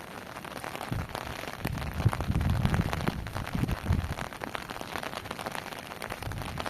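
Heavy rain drumming on a tent roof, a dense patter of drops. A loud, low rumble swells from about a second in and fades about four seconds in.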